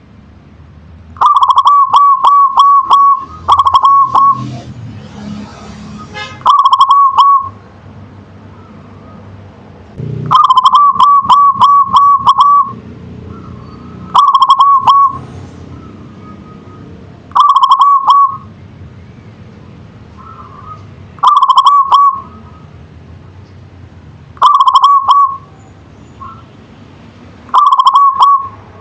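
Zebra dove (perkutut) singing: about nine loud phrases of rapid, clipped cooing notes, repeated every three to four seconds. The first and fifth phrases are longer runs of notes, about two seconds; the rest are shorter.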